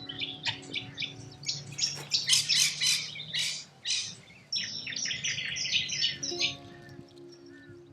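Corella cockatoos calling in a rapid string of harsh, screeching squawks, the loudest in the middle, then dying away near the end.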